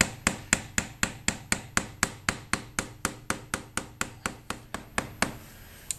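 Screwdriver tip tapping on the metal can of a stuck spin-on motorcycle oil filter: light, sharp taps, about four a second, which stop about five seconds in. The taps are driving the seized filter counterclockwise to loosen it.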